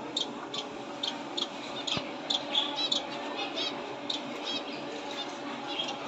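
A cage of small finches chirping: many short, high chirps, several a second, thickest in quick runs around the middle, over a steady low hum.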